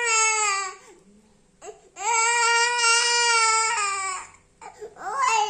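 Young boy crying in long, drawn-out wails while he is being massaged for a cough: one wail of about a second, a second of about two seconds after a short pause, then broken sobbing near the end.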